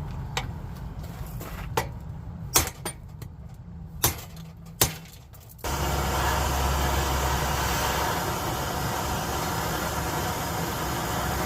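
Hammer blows on a steel U-joint, about six sharp strikes spaced unevenly. About halfway through, a steady rushing noise with a low hum starts abruptly and continues.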